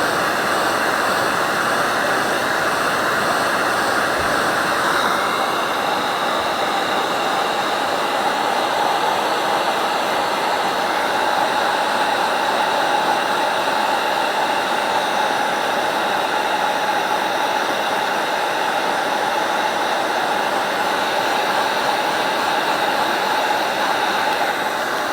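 Heat gun running steadily, an even rush of blown air with a faint steady whine, heating a plastic toy tail fin to soften it for straightening.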